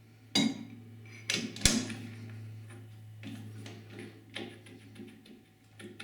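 Metal clanks and knocks of parts being handled while a short piece of pipe is set up in a metal lathe; a few sharp knocks in the first two seconds, the loudest just under two seconds in, then lighter ticks. A low steady hum runs underneath.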